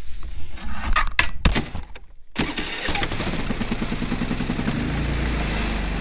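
Predator portable gasoline generator starting: a few clicks and knocks, then the engine catches about two and a half seconds in and runs, settling to a steadier, lower speed about five seconds in. It starts easily in the snowy cold.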